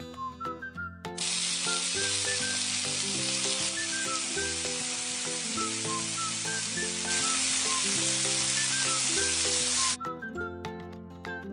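Steady sizzling hiss of food cooking, starting about a second in and cutting off abruptly near ten seconds, over light background music.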